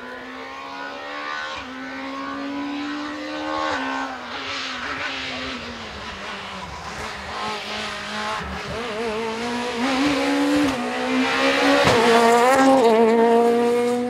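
Ford Fiesta rally car's engine at high revs, the note climbing and dropping back at each gear change as it comes closer and grows louder. The pitch wavers at its loudest, about twelve seconds in, and the sound cuts off suddenly at the end.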